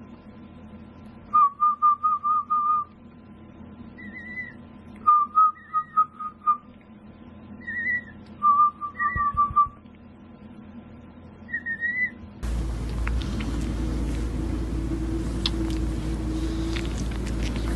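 Emu chick giving whistling peeps: four bouts of quick repeated short notes, with higher slurred whistles between them. About two-thirds of the way through, a steady rushing noise takes over.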